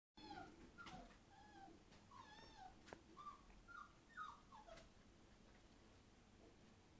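Five-week-old Entlebucher Mountain Dog puppies whining and squeaking, many short high calls overlapping in the first five seconds, then fewer, with a few sharp clicks among them.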